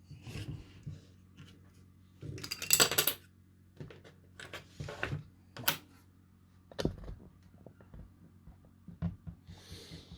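Small objects being handled and set down on a workbench: scattered clicks and knocks, with a brief, louder rustle about two and a half seconds in.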